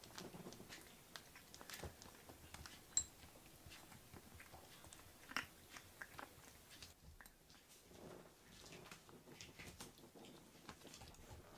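A kitten crunching dry kibble (karikari), making a quick, irregular series of faint crunches and clicks.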